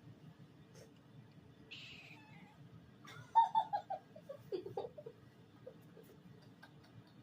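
A cat giving a quick run of about six short chirping notes that fall in pitch, followed by a short meow-like call.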